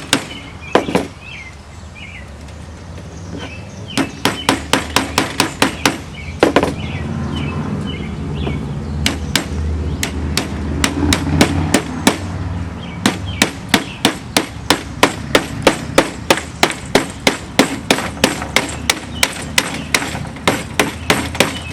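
Rapid sharp taps, about three to four a second in two long runs, from the metal spline being tapped down into the channel of an Andersen window screen frame.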